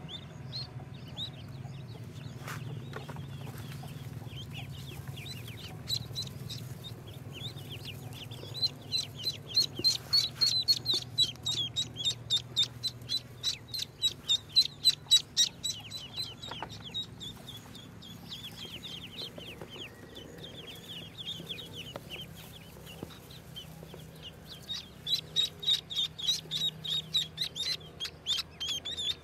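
Newly hatched ducklings peeping: a constant chorus of short, high peeps that swells into loud, rapid peeping through the middle and again near the end, over a low steady hum.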